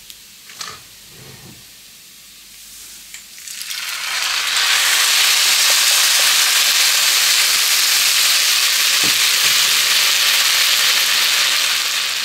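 Broth poured into a hot pan of buckwheat and onion fried in butter: after a few quiet seconds of faint frying and light knocks, a loud, steady sizzling hiss starts about four seconds in as the liquid hits the hot fat.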